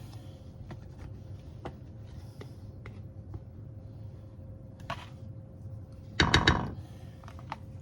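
A utensil scraping and tapping against a glass jar to get the last of the home-canned pie filling out: scattered light clicks, then a short burst of several loud knocks about six seconds in.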